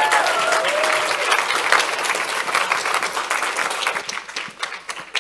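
Audience applauding at the close of a talk, the clapping thinning out near the end.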